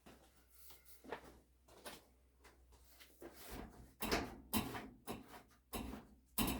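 A series of irregular knocks and clatters from objects being handled and set down, sparse at first and louder from about four seconds in.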